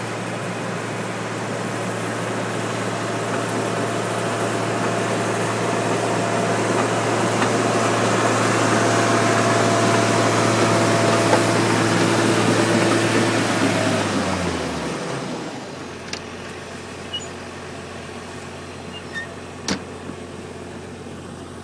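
John Deere 750J crawler dozer's diesel engine running steadily and growing louder, then throttling down to a lower idle about fourteen seconds in. A few short clicks follow near the end.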